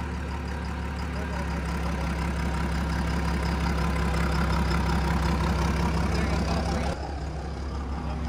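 Diesel engine of a second-generation Dodge Ram pickup idling steadily, a low even rumble. The sound changes abruptly about seven seconds in, and the engine hum carries on after the change.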